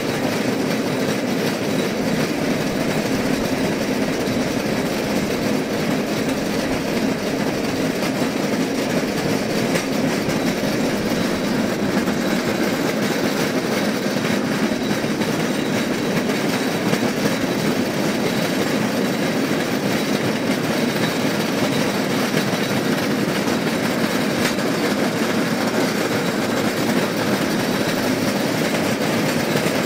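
Rail vehicle rolling steadily along the track: a continuous wheel-on-rail rumble with faint clicks from the rails.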